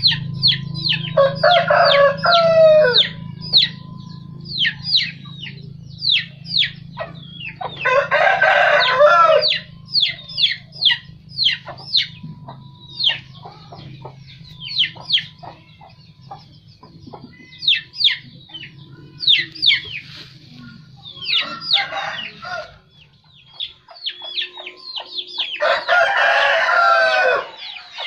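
A rooster crows four times, the third crow fainter, while chicks peep constantly in quick, high, falling chirps. A low steady hum sits underneath and fades out near the end.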